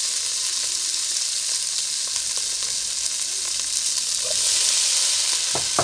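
Diced carrot, sweetcorn and green pepper sizzling steadily in a hot nonstick pan as a wooden spatula stirs them.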